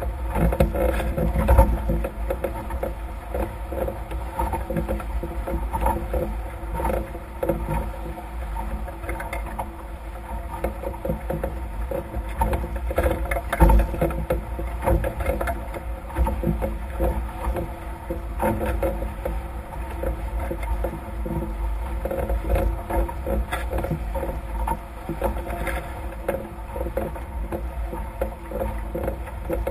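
Wind rumbling on the microphone and water rushing and splashing against the hulls of a Nacra F18 catamaran sailing fast through chop, with frequent knocks and slaps. There are louder hits about 1.5 s and 13.5 s in.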